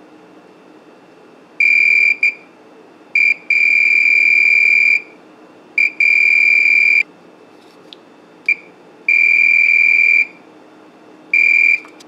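Fluke 187 multimeter's continuity beeper sounding a high, steady tone in about nine uneven beeps, from short blips to about a second and a half long, as the test probe makes and breaks contact on a 3.5mm headphone jack's terminals. The beeps mark continuity through the jack's normally closed switch contacts.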